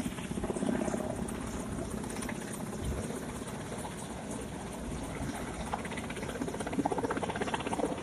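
Helicopter rotors chopping overhead in a steady rapid beat as the helicopter hovers and flies slowly with a slung load. The beat grows a little louder near the end.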